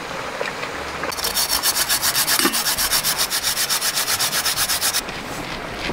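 Yam being grated for tororo: fast, even rasping strokes, about ten a second, that start about a second in and stop abruptly near the end.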